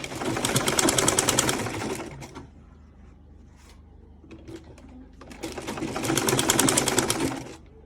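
Sewing machine stitching in two runs of about two seconds each, with a few light clicks in the pause between.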